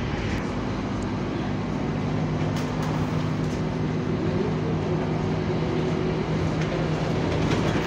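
Scania bus engine and cooling fan running, heard from inside the passenger cabin as a steady drone with several level low tones held throughout.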